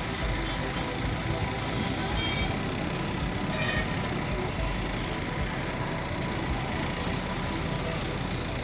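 Diesel engine of a JCB backhoe loader running steadily at work, with a few short high-pitched chirps about two to four seconds in.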